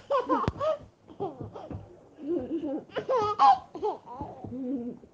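A baby laughing and babbling in short bursts, with a single sharp click about half a second in.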